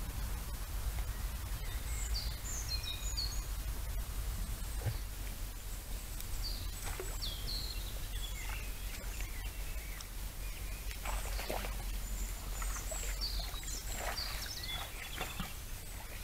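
Small songbirds chirping and trilling in short scattered phrases over a steady low background rumble, with a few soft rustles or knocks about two-thirds of the way through.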